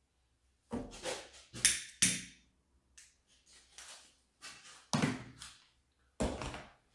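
A series of short knocks and rustles of movement and handling, about six in all, each starting sharply.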